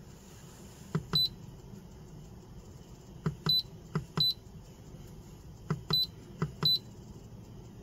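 Simrad AP44 autopilot controller giving short high key beeps as its rotary knob is turned to set a pitch offset: five beeps at uneven intervals, each just after a click.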